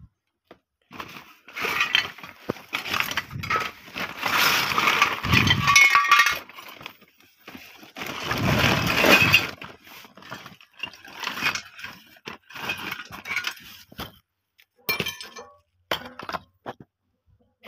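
A sack of scrap, glass bottles, cans and metal bits, clinking and rattling as it is rummaged through and shifted. Two longer bouts of jumbled clatter come first, then scattered clinks.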